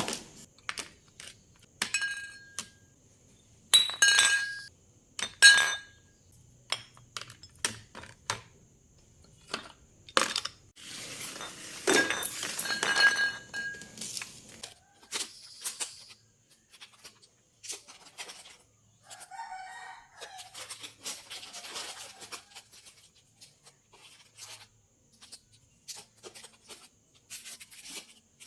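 Household clatter: a run of clinks and knocks from hard objects such as dishes or glassware being handled, several strikes ringing briefly with a clear tone. A denser spell of clattering comes about midway.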